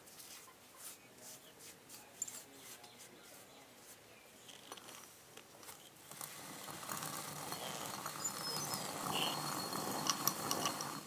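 Hand-turned stone quern splitting pulses: a gritty crackling and rattling of grain crushed between the stones. Faint, with scattered ticks at first, then louder and denser about six seconds in.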